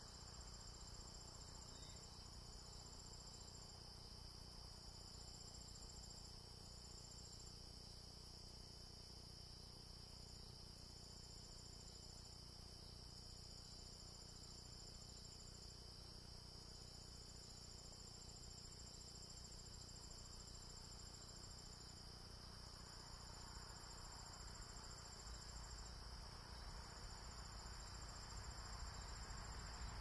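Faint evening insect chorus of crickets: a steady high-pitched drone, with a higher trill that runs for a second or few at a time and breaks off again. A low rumble creeps in near the end.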